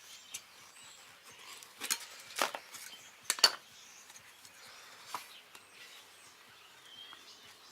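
Scattered sharp clinks and knocks of metal tools and bicycle parts being handled, several in all, the loudest a quick pair about three and a half seconds in.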